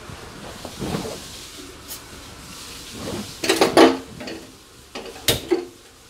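Metal trays and a pan being handled, with pearl millet seeds stirred and rustling against the metal, a clatter in the middle and a sharp knock near the end.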